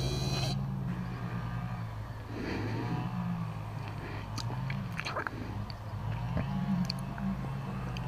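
A vehicle engine idling steadily: a low hum whose pitch wavers slightly, with a few faint clicks.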